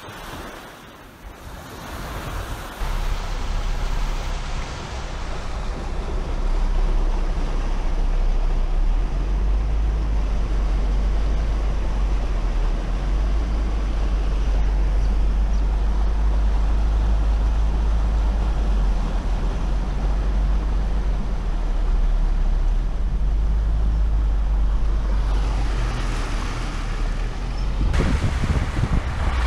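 A vehicle driving, with a steady low rumble under a wash of road and wind noise on the microphone. The noise builds over the first few seconds and grows brighter near the end.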